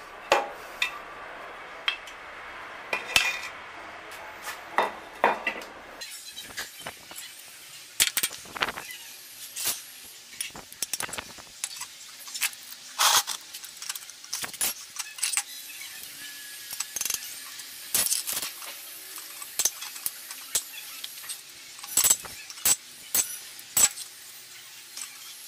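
Irregular metallic clinks and taps: an Allen key, bolts and small parts knocking against an aluminium motorcycle engine crankcase as it is worked on by hand.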